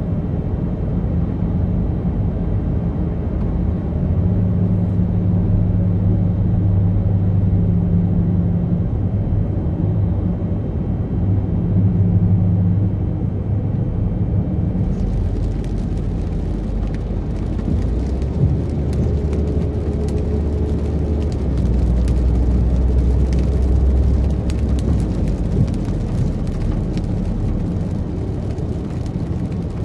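Car driving, heard from inside the cabin: a steady low rumble of engine and road noise. About halfway through, a faint high crackling hiss joins in.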